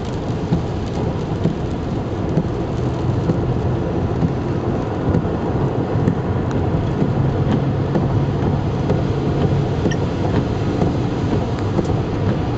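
Steady low rumble of road and wind noise inside a car driving along a highway, with a few faint ticks.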